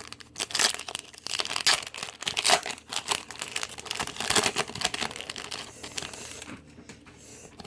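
Trading card pack wrapper being torn open and crinkled in the hands, a busy run of crackling that thins out near the end.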